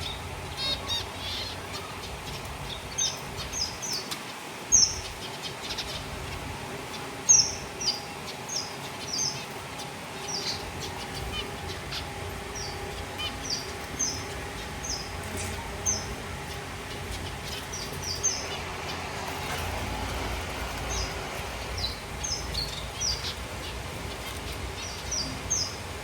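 A colony of zebra finches calling: many short, high chirps scattered irregularly, often several in quick succession.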